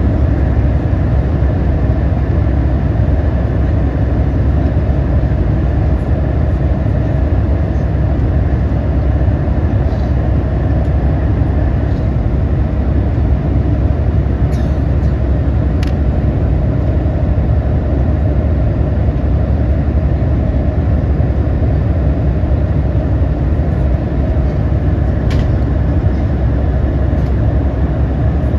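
Steady engine and airflow noise inside a jet airliner's cabin in flight, with a few faint small clicks.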